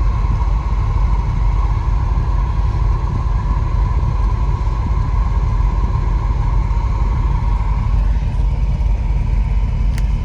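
Steady low rumble of a 1973 Jensen Interceptor's Chrysler V8 idling, heard from inside the cabin with the heater blower fan running. A single click sounds near the end.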